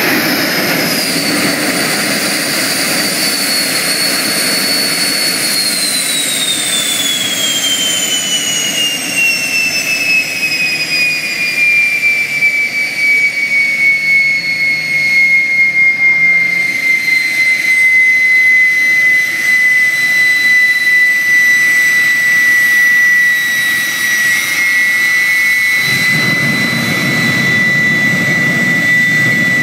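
Turbomeca gas turbine of a jet-powered Daihatsu Mira running: its high whine falls in pitch over several seconds and settles into a steady whine. About 26 seconds in a low rushing sound of burning fuel joins it as a plume of flame blasts from the exhaust.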